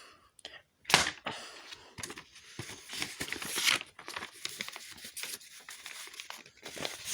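A sheet of paper being handled and folded, crinkling and rustling irregularly, with a sharp loud rustle about a second in.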